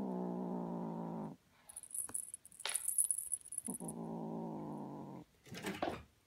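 Ragdoll kitten growling low and steady with a feather toy in its mouth: two long growls, at the start and about four seconds in. Between them the toy's little bell jingles.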